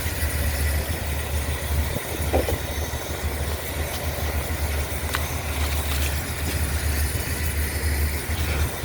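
A steady low engine-like hum, as of a machine idling, with a hiss above it and a few faint clicks.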